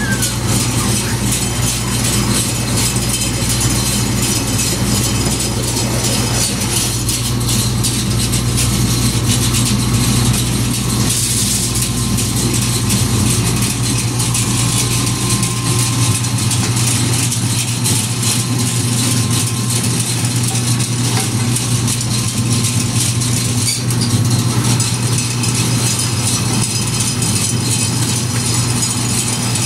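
Motor-driven corn mill (molino) running steadily while it grinds squash seeds and maize with tomato, green chile and onion into a wet paste. It makes a loud, even hum with a constant grinding noise over it.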